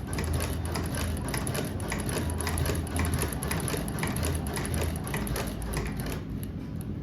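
Manual cobbler's sewing machine stitching thick leather: a fast, even run of mechanical clicks that stops about six seconds in.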